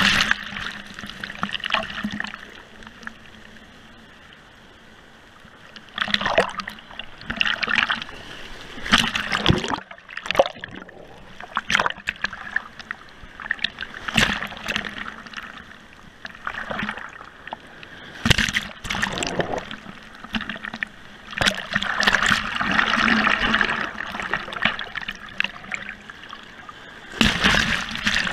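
Breaking surf and sea water splashing over a GoPro at the waterline, the camera washed over and dipping under the surface. The splashes come in irregular loud rushes, with a quieter stretch a few seconds in.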